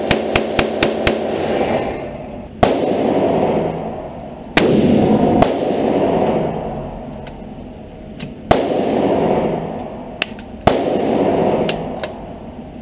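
Gunshots echoing in an indoor firing range. A quick string of about seven sharp cracks comes in the first second, then four single shots about two seconds apart, each followed by a long booming reverberation.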